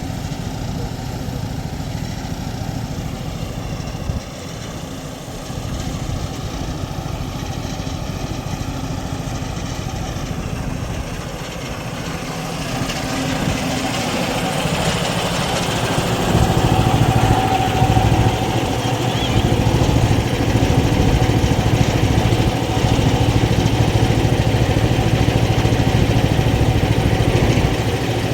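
A small engine running steadily, growing louder and heavier a little past the middle.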